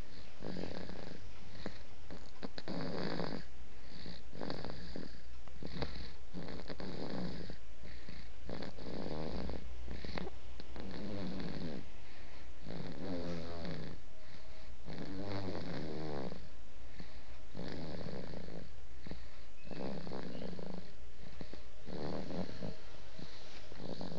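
A man snoring: a long run of snores, one about every one to two seconds, over a low steady hum.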